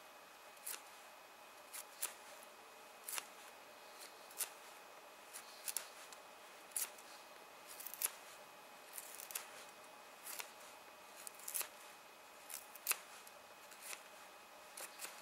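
Puukko knife (Ahti Korpi) shaving thin kindling sticks off split firewood, whose inside is dry. Short crisp scraping strokes come about once a second.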